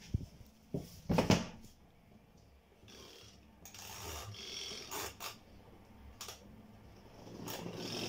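Twin-tub washing machine's spin dryer being started: a few knocks and clicks in the first second and a half as the lid and controls are handled, then the spin motor starting up with a low hum that builds toward the end.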